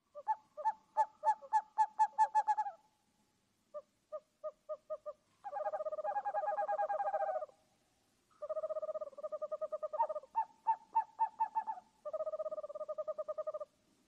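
Owl calling: a run of about a dozen quick short hoots, then a shorter run of hoots, then long trilled calls broken by another run of quick hoots.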